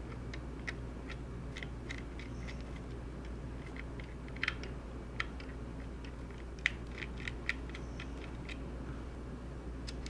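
Small precision hex screwdriver turning tiny screws out of a DJI Phantom 3 gimbal mount plate: irregular light clicks and scrapes of metal on metal, with a few sharper clicks, over a steady low hum.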